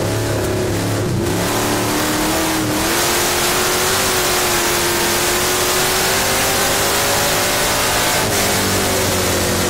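Dirt-track stock car engine heard from inside the cockpit, racing under load. The engine note dips briefly about a second in, climbs steadily and holds high, then starts to fall near the end, over wind and dirt-road noise.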